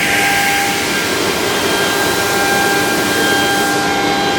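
ELE2128ATC CNC router running: a steady, loud rushing noise with several constant whining tones.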